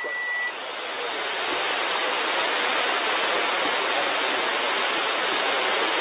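Shortwave receiver hiss: steady static and band noise on the 40 m amateur band, heard through a software-defined radio's single-sideband audio with no station transmitting. A thin steady whistle from a carrier on the frequency stops about half a second in.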